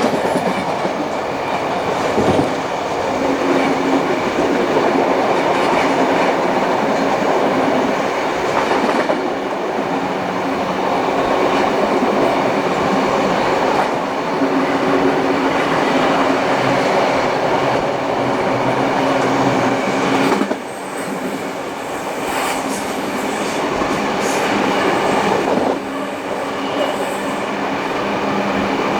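Passenger train hauled by steam locomotive 3801 running along the track, heard from the carriages behind the engine: a loud, steady rolling noise with a low hum, dipping briefly twice, about 20 and 26 seconds in.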